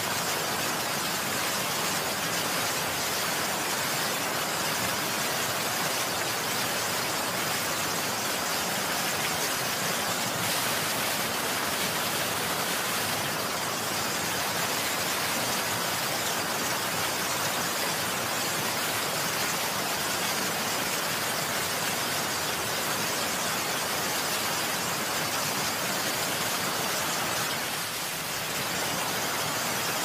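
Heavy rain falling steadily, an even unbroken hiss with no distinct drops, thunder or birds standing out, dipping a little in level near the end.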